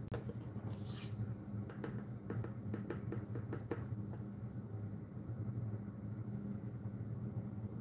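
A small chemist's spoon scooping powdered dye from a jar: a run of light clicks and taps for about two seconds, over a steady low hum.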